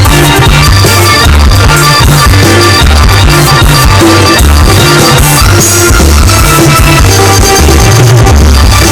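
Live band playing loud amplified music, with a pulsing bass line, recorded on a phone's microphone and coming through unclear.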